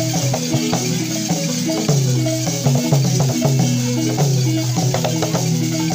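West African funeral dance music: a balafon-like wooden xylophone plays a short repeating pattern of struck notes over hand drums, continuously and without a break.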